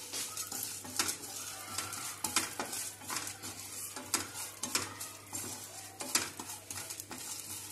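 Wooden spatula stirring and scraping around a nonstick frying pan in repeated strokes, over a light sizzle of cumin, mustard seeds, chana dal and urad dal roasting in oil for a tempering.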